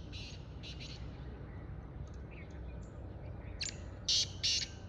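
Black francolin calling: a series of harsh, grating notes, loud near the end, with fainter calls near the start. Small birds chirp faintly around it.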